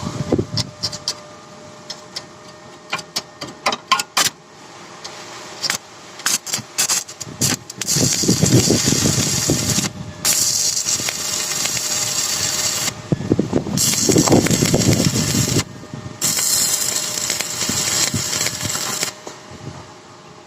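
A few sharp metal knocks and clicks, then a power tool runs in stretches of two to three seconds with short breaks between them.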